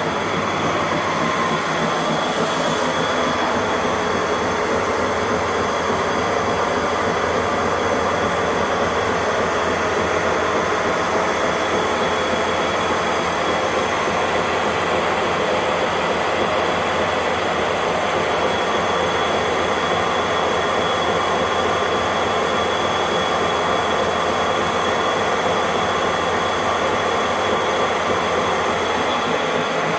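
Motorised treadmill with a 5 horsepower motor running steadily, the motor and belt giving a continuous whir with a steady high whine.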